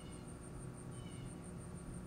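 Insects calling outdoors: a high-pitched trill pulsing evenly at about four pulses a second, with a couple of faint short chirps above a low steady hum.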